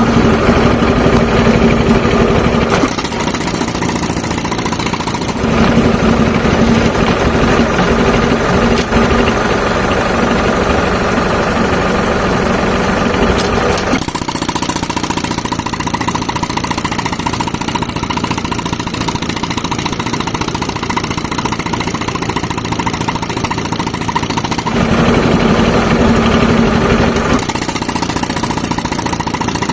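Tractor engine running an air compressor for pneumatic rock breaking. The sound shifts in spells of several seconds, louder and denser around the first few seconds, from about 5 to 14 seconds in, and again near the end.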